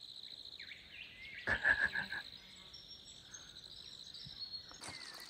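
Steady high-pitched insect chirring in evening bush, with a short run of about five quick notes about a second and a half in.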